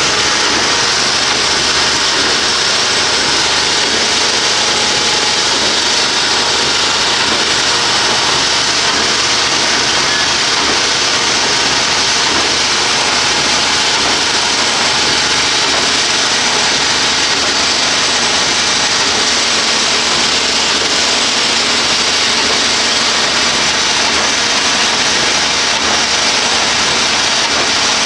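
Twin-shaft concrete mixer running, its two paddle shafts turning and churning material in the trough: a loud, steady, even machine noise.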